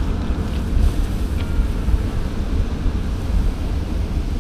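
Steady low rumble of wind buffeting the microphone, over the rush of water.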